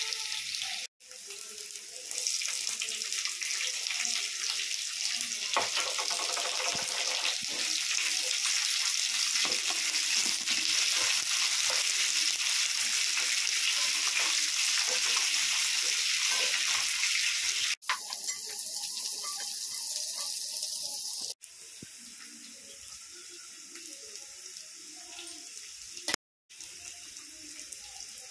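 Hot oil sizzling in a nonstick frying pan as garlic, green chillies, leaves and sliced onions are stir-fried with a spatula. The sizzle is a steady hiss that breaks off abruptly a few times and is quieter over the last quarter.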